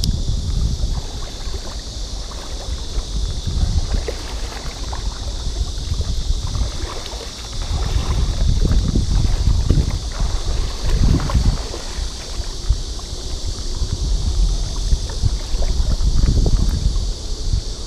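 River water sloshing and swirling around a person wading through deep water, surging with each stride, with wind buffeting the microphone.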